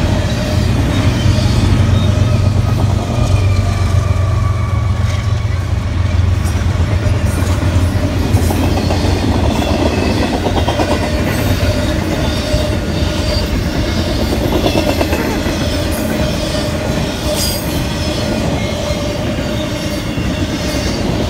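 Double-stack intermodal container freight train rolling past at close range: a steady low rumble of the cars, heaviest in the first several seconds, with scattered clicking of wheels over the rail joints.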